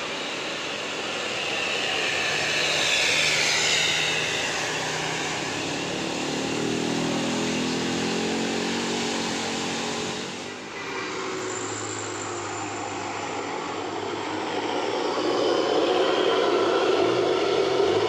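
Road traffic passing on a bend: engines of passing vehicles rise and fall in pitch as they go by. It grows louder near the end as another vehicle approaches.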